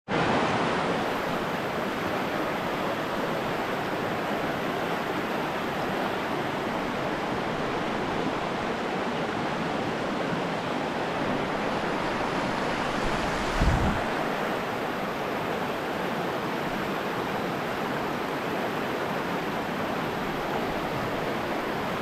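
Glacial meltwater river rushing steadily over a gravel bed. A brief low thump of wind on the microphone comes a little past halfway.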